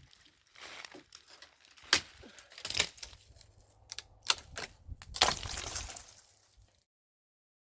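Irregular cracking and crunching, with about half a dozen sharp cracks among rustling scrapes, then the sound cuts off suddenly.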